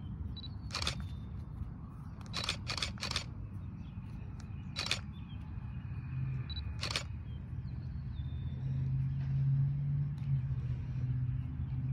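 Low outdoor rumble broken by half a dozen short, sharp clicks in the first half, with a steady low hum coming in about two thirds of the way through.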